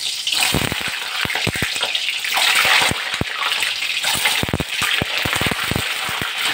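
Hot mustard oil sizzling in a kadhai as peeled boiled eggs are dropped in to fry, with a steady hiss and frequent sharp pops and crackles of spattering oil.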